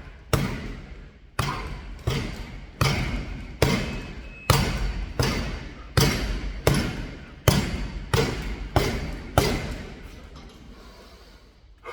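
Punches landing one after another on a punch bag, about a dozen heavy thuds roughly one every 0.7 s, each ringing on briefly in a large room. They stop about three-quarters of the way through.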